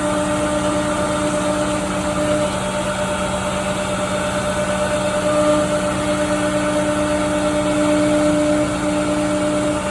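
Multicam CNC router running: a steady machine hum with several held tones. One of the lower tones drops out for a few seconds, starting about two and a half seconds in, then comes back.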